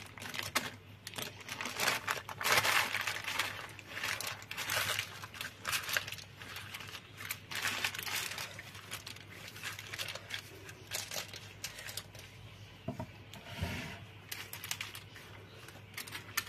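Baking paper crinkling and rustling in irregular bursts as gloved hands lift it to roll up a tray of baked potato slices and mince filling, with one soft thump late on.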